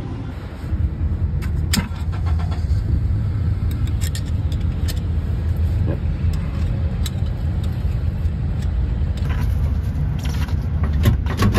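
Steady low rumble of a nearby vehicle engine idling, with scattered light metallic clicks and clinks as a pick tool works the lock nut and tabbed washer off a wheel hub.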